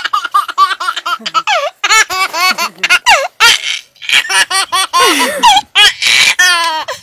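A baby laughing in quick, high-pitched bursts, over and over, as a goat nibbles at its hand.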